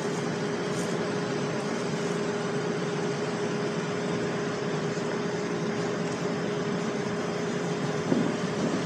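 Steady drone of rooftop ventilation equipment, an even rush with a constant hum.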